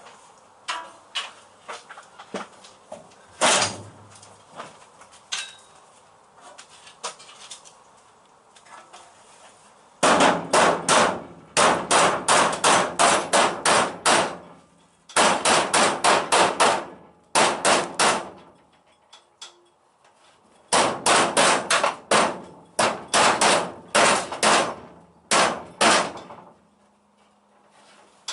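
Hammer beating a steel car body panel: scattered light taps at first, then from about ten seconds in fast runs of sharp metallic strikes, about five a second, in bursts of a few seconds with short pauses between.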